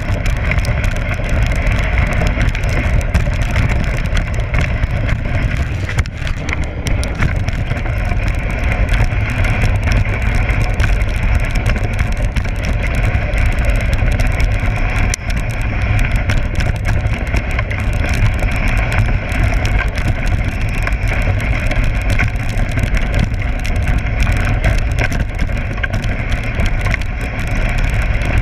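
Dog sled running over packed snow: a steady hiss and rattle from the sled, with low wind rumble on the microphone.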